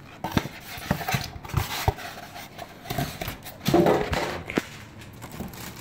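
Scattered knocks, clicks and rustling from a cardboard box and its packaging being handled as an RC crawler is worked out of it.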